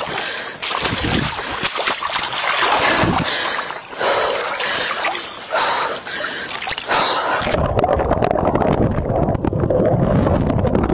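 Water splashing and sloshing irregularly as a person pushes through a near-freezing pond. About three-quarters of the way through the microphone goes under the surface, and the sound turns suddenly to a dull, muffled underwater rush with the higher sounds cut away.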